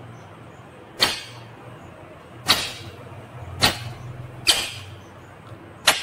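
Indian ringneck parrot giving five short, sharp, harsh calls, spaced about a second apart.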